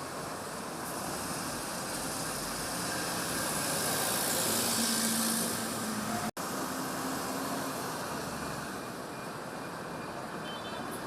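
Steady noise of running vehicles. It swells a little toward the middle and drops out for an instant about six seconds in.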